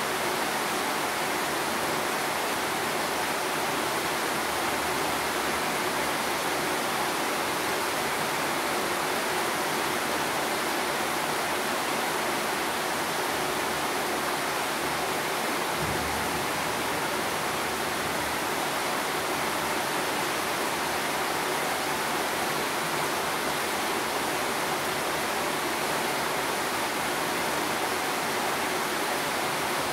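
Steady, even hiss of rain falling.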